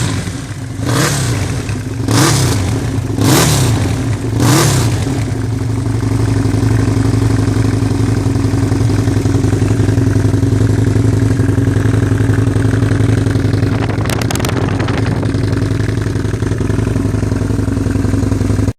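Husqvarna Nuda 900 R's parallel-twin engine, fitted with an aftermarket exhaust, revved in about five short throttle blips roughly a second apart. It then settles into a steady idle.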